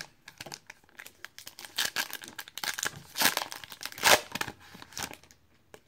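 A trading-card pack wrapper being crinkled and torn open by hand: a run of crackling rustles, loudest about three and four seconds in, that fades out near the end.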